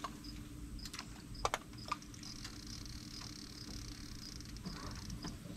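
Insects chirping in an even rhythm, a few short high chirps a second, with a higher insect buzz that swells in about two seconds in and fades out before the end. A few sharp clicks and knocks stand out, the loudest a quick double click about one and a half seconds in.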